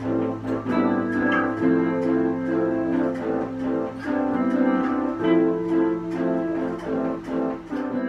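Keyboard and electric guitar playing together in a jam: held chords with plucked and struck notes over a steady low hum.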